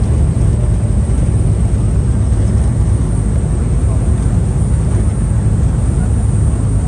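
Steady low rumble of a river cruise boat under way, running evenly with no change in pitch or level.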